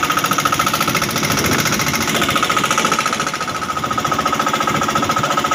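A small engine on a fishing boat running steadily and loudly close by, with a rapid, even knocking beat and a steady high whine.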